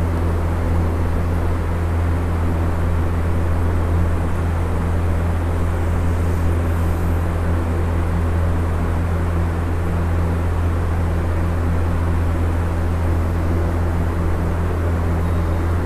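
Steady low hum under a constant hiss, droning on unchanged with no breaks.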